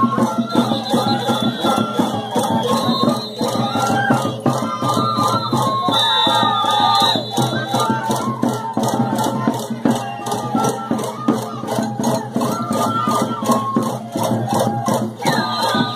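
Live Andean carnival folk music: a melody over a steady percussion beat, with a rattling shaker-like sound in the rhythm.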